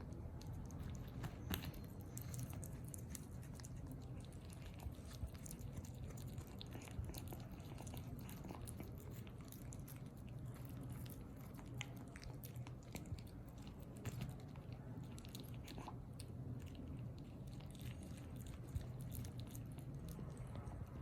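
Kittens eating, with many small irregular clicks of chewing and biting.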